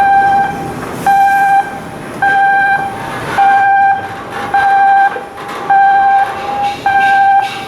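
Electronic warning alarm beeping: a steady single-pitched tone, each beep about half a second long, repeating about once a second, over a background of machinery noise.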